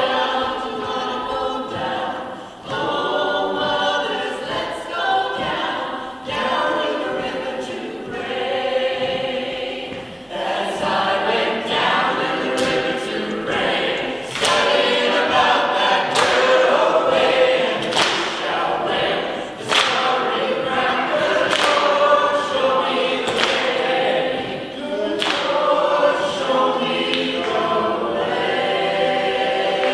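Mixed choir of adults and children singing together, with sharp percussive beats about every two seconds through the second half.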